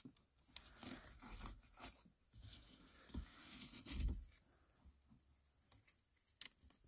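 Faint rustling of plastic wrapping and Velcro straps, with a few soft bumps, as a jack handle kit is pressed into its storage spot under a car's rear seat.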